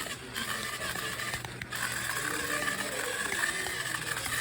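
Off-road RC car's motor and gear train whining with a steady rattling gear chatter as it is driven, cutting out briefly twice as the throttle is let off.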